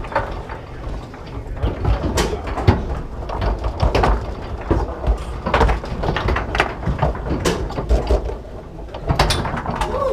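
Foosball table in play: the ball is struck and passed by the plastic rod men, and the steel rods slide and clack, giving a run of sharp, irregular knocks and rattles.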